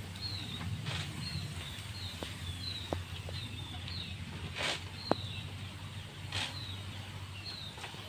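Knapsack sprayer giving short hissing bursts of spray every second or two as formalin disinfectant is sprayed over the cages. A small bird chirps repeatedly behind it, and there are a few light clicks.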